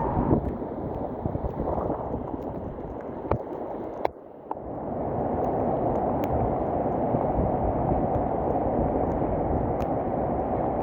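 Rushing floodwater of a swollen mountain river, a loud, steady churning rush, briefly dropping off about four seconds in before resuming.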